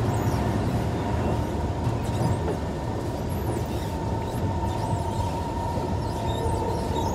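Kawasaki C151 metro train running between stations, heard from inside the passenger car: a steady low rumble of the wheels and running gear with a steady high whine over it.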